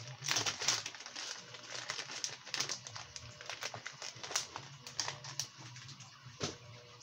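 Plastic bait bags crinkling and rustling as they are handled, a busy run of irregular crackles and clicks that thins out toward the end.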